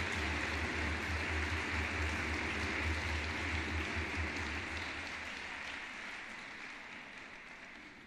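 Arena audience applauding, dying away over the last few seconds.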